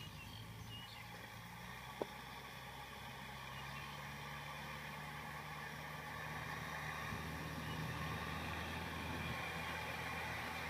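Small farm tractor's diesel engine running steadily under load, working a flooded rice paddy; the engine note grows louder as the tractor comes closer. A single short tick about two seconds in.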